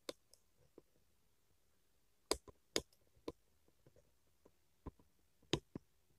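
About ten sharp, irregular clicks and taps over quiet room tone, the loudest a little over two seconds in, near three seconds, and near the end.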